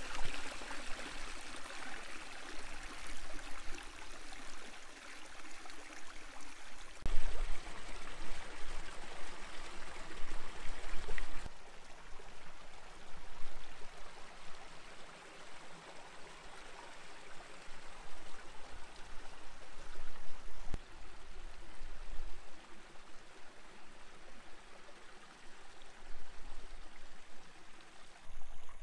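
Shallow stream trickling among granite rocks, close at first and fainter from about halfway on. A low rumble of wind on the microphone comes in about seven seconds in and lasts around four seconds.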